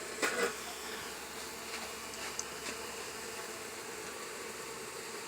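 Honeybees swarming around an opened hive, buzzing in a steady hum, with one short burst of noise about half a second in.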